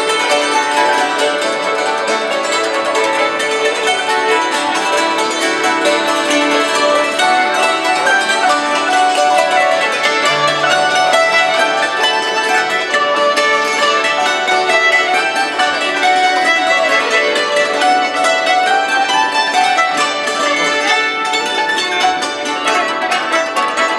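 Hammered dulcimers struck with hammers in an old-time string-band tune, joined by a fiddle: a dense, steady stream of quick, ringing struck notes.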